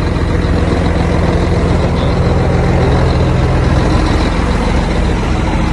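Heavy truck's diesel engine idling steadily, a constant low drone whose lowest tone drops away about four seconds in.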